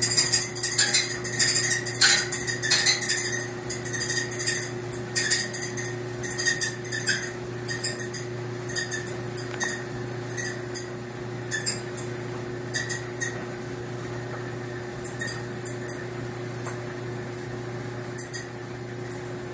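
Maytag clothes dryer running with a steady hum, overlaid by short, irregular high-pitched screeching chirps that come thick and fast at first and grow sparser after about seven seconds.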